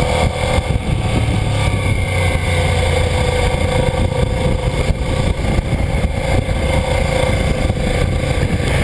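Suzuki SV650's V-twin engine running at a steady cruise as the motorcycle rides along, its pitch holding fairly even, over a constant rushing noise.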